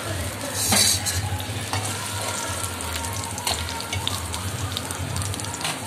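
Chopped fresh coconut pieces sizzling in oil in a pan while being stirred, with utensil scrapes and clicks against the pan, the loudest about a second in. This is the light frying that takes away the coconut's raw smell before it goes into chutney.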